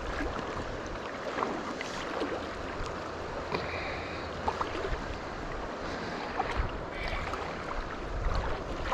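Steady rush of river water, with a few light clicks and brief faint high tones over it.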